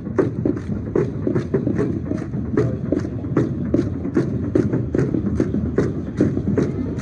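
Steady rhythmic percussion of a matachines dance, about three sharp strokes a second: the dancers' stamping steps and rattles keeping the beat.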